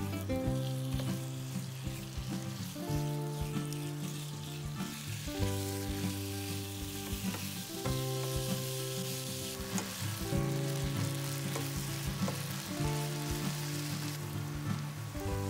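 Pork pieces sizzling as they fry in oil in a non-stick pan, stirred and turned with a plastic slotted spatula that scrapes and clicks against the pan now and then. Soft background music with held chords changing every couple of seconds plays underneath.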